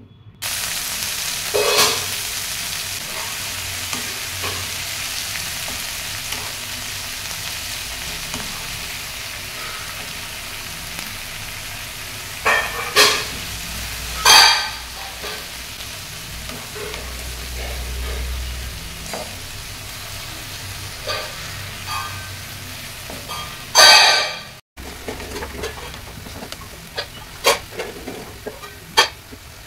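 Gongura (sorrel) leaves sizzling in hot oil in a nonstick pan as they wilt, with a steady frying hiss. A wooden spatula stirs and scrapes against the pan, loudest in a few short strokes about midway and again near three-quarters through.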